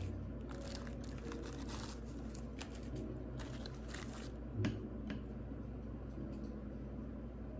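Light crunching and scattered clicks, with one sharper click about four and a half seconds in.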